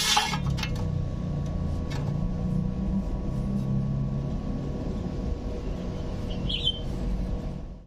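Steady low mechanical rumble from a running machine or engine, with a faint steady hum over it. A brief scrape comes right at the start, and a bird chirps once near the end.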